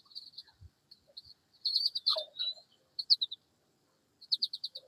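Songbirds chirping: several short bursts of quick, high repeated chirps and trills.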